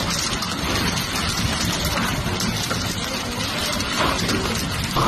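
Steady rain falling onto the open water of a large pool, a continuous even hiss of drops hitting the surface.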